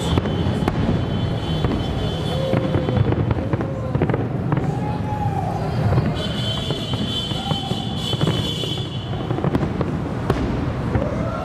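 Fireworks display: a dense, continuous run of aerial shell bursts, with many sharp bangs and crackling over a low rumble.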